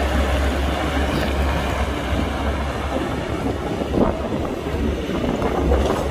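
Hydraulic excavator's diesel engine running steadily under load as it empties a bucket of dirt and swings back, with a clattering, rumbling texture and one sharp knock about four seconds in.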